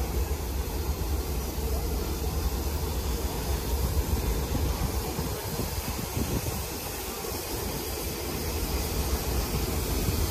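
Caledonian Railway 812 Class 0-6-0 steam locomotive rolling slowly through a station platform, a steady low rumble with a hiss over it.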